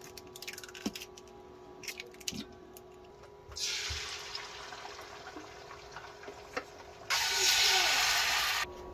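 Eggs tapped and cracked into a stainless steel bowl, a few light clicks, then beaten eggs sizzling as they are poured into a hot cast-iron skillet. The first sizzle starts sharply about three and a half seconds in and fades. A louder steady sizzle follows from about seven seconds in and cuts off suddenly near the end.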